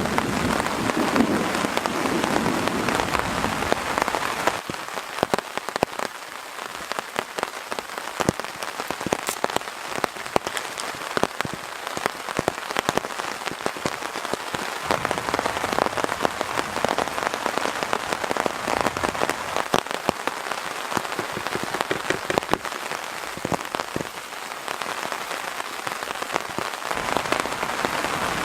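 Heavy thunderstorm rain falling steadily, with many separate drop hits ticking through the hiss. A low thunder rumble dies away about four seconds in.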